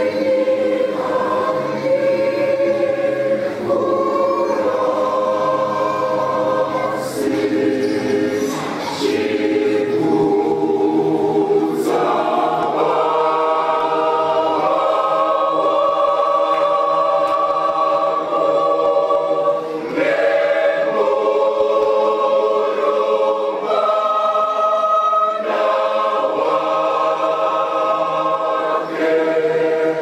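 Mixed choir of men's and women's voices singing a Shona gospel song in harmony, holding sustained chords that change phrase by phrase with brief breaths between phrases.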